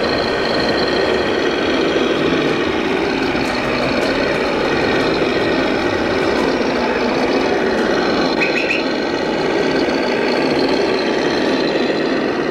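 Simulated diesel truck engine from an RC scale Scania truck's sound module, running steadily.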